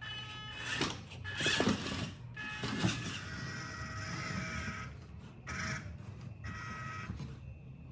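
Small electric motor and gearbox of an RC crawler truck whining in stops and starts, with plastic creaks and knocks as the truck works over the obstacles.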